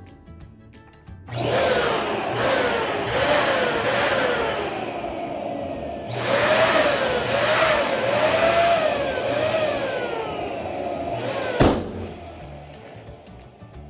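Air pump inflating a balloon with a loud, steady hiss that stops briefly about six seconds in and then resumes. It ends with one sharp balloon pop near the end.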